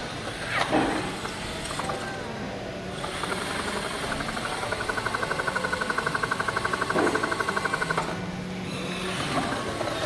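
Battery-powered RC 4x4 toy truck driving in sand, its small electric motor and gears running. From about three seconds in until about eight seconds there is a fast pulsing buzz of roughly a dozen pulses a second, with a couple of sharp clicks.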